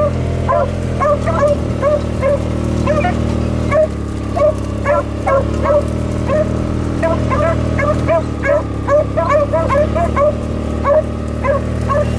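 Beagles baying in quick, short, high yelps, several a second, as they work a rabbit's scent track, over the steady low hum of a Kubota utility vehicle's engine.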